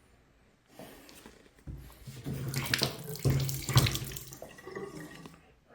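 Water rushing through the under-sink supply lines and faucet as the hot and cold shut-off valves are reopened, a hissing flow that builds about two seconds in with a steady low hum, then tapers off. A couple of sharp knocks come in the loudest part.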